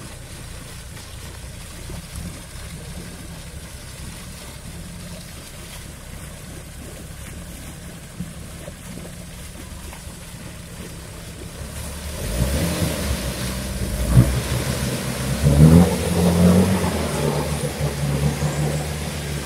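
Nissan Terrano's engine running at low revs while the car sits in deep water, then revving hard from about twelve seconds in, its pitch rising and falling, as the car drives up out of the flooded hole.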